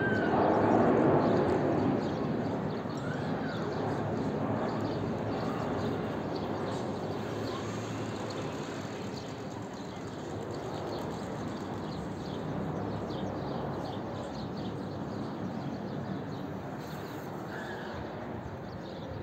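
Jet airliner's engines rumbling overhead, loudest in the first couple of seconds and then slowly fading as the plane flies away.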